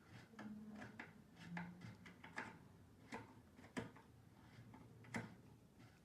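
Faint, irregular clicks and taps from hands fitting and handling flat-pack furniture parts, with two sharper knocks about four and five seconds in.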